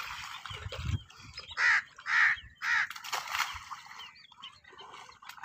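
Crows cawing: a few short, harsh caws in quick succession in the middle.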